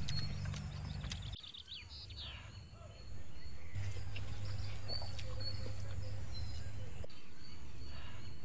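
Outdoor ambience: small birds chirping now and then over a steady high insect drone, with a steady low hum underneath that drops away for about two seconds near the start.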